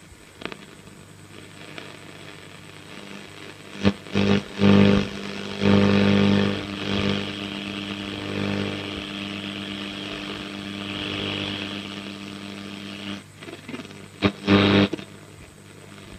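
Philips Stella 533 valve radio's loudspeaker giving static hiss and a steady hum as the knob is turned between stations, with short loud bursts of broadcast sound about four seconds in and again near the end.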